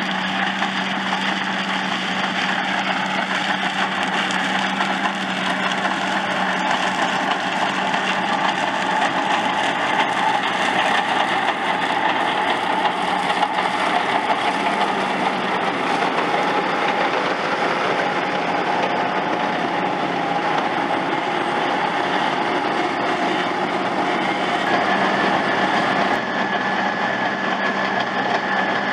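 New Holland T7.210 tractor pulling a Grimme SE 150-60 potato harvester: the engine and the harvester's machinery run steadily together under working load. A steady higher whine joins near the end.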